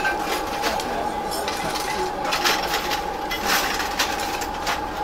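Metal utensils clinking and scraping at a street dosa griddle, a few short knocks scattered through, over a steady high hum and background chatter.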